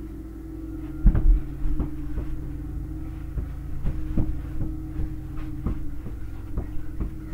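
Irregular thumps and knocks from a mini-hoop basketball game in play: feet and bodies moving on the floor and the ball bouncing. They start about a second in and come roughly every half second, over a steady low hum.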